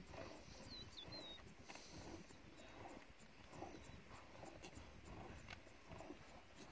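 Lionesses feeding on a carcass: faint tearing, chewing and the odd crunch, with a brief high chirp about a second in.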